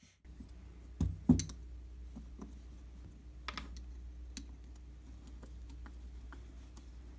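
Light clicks and knocks of a Mikuni carburetor and small hand tools being handled, with two sharper knocks about a second in and scattered light clicks after, over a steady low hum.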